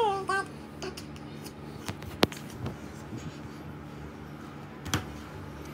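A baby's short high-pitched babble at the start, then scattered light clicks and taps as the baby handles a laptop, pushing at its lid and keys, with one sharp click about two seconds in and another near the end.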